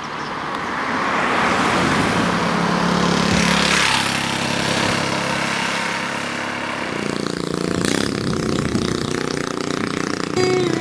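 Road traffic passing: a motor vehicle swells past with engine and tyre noise that peaks about three to four seconds in and then fades, followed by a motorcycle engine running steadily as it approaches.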